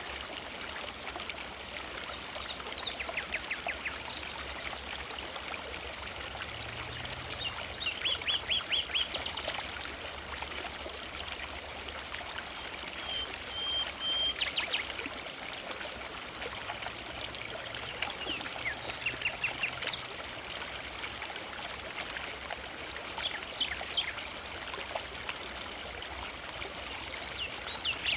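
A forest river flowing steadily, its water rushing and pouring over rocks. Several times, short runs of quick repeated chirps from birds cut in above the water, with one brief steady whistled note near the middle.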